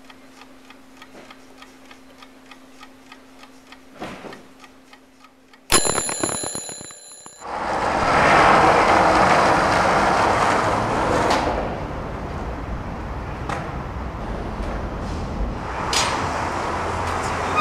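A clock ticking steadily and quietly over a faint hum, then an alarm clock ringing for about a second and a half. The ringing gives way to loud, steady rushing outdoor noise.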